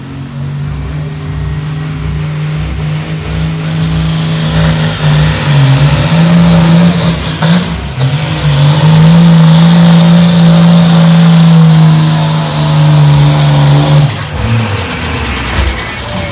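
Pro Stock pulling tractor's turbocharged diesel engine at full power, dragging the weight sled, with a high turbo whine rising over the first several seconds. The engine note dips briefly about eight seconds in and drops away sharply about fourteen seconds in.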